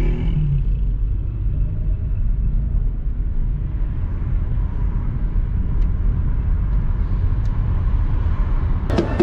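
Steady low rumble of a car driving, heard from inside the cabin: engine and road noise. Music with regular drum beats cuts in near the end.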